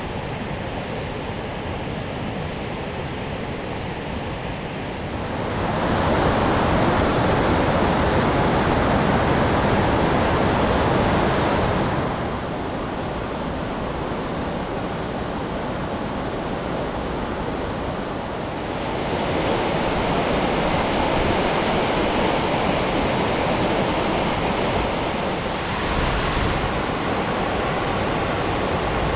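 Muddy floodwater of the Riu Sec in spate, rushing and churning down its channel as a steady noise of turbulent water. It grows louder about six seconds in, drops back about twelve seconds in, and rises again after about nineteen seconds.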